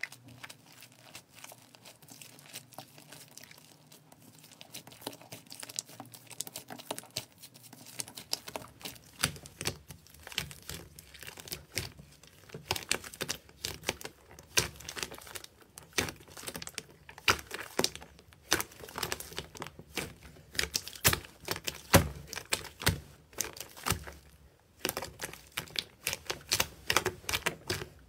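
Slime being squished and pressed: a run of crackles and pops, faint and sparse at first, then louder and denser from about nine seconds in.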